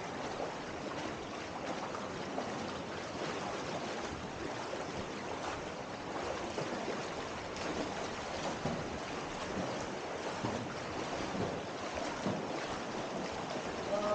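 Shallow river water rushing and splashing steadily around people wading through it, heard close up.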